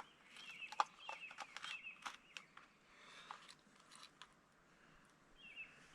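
A bird calling in short warbled phrases, repeated several times, with faint clicks and rustles of handling in between.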